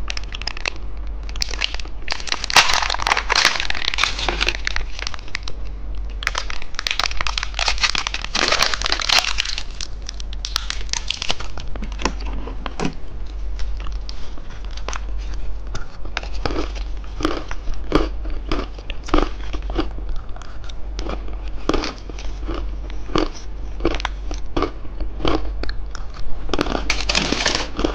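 Plastic wrapper crinkling and crackling as a cookie-egg candy is unwrapped, in two dense spells, followed by a long run of separate small clicks and cracks as the egg's contents are handled.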